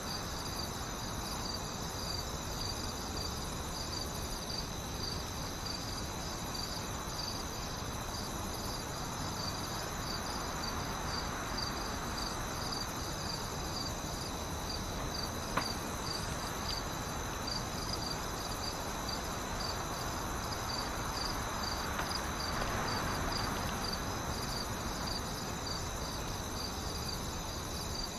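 Crickets chirping in a steady, even pulsing rhythm over a constant background hiss, a night-time insect chorus.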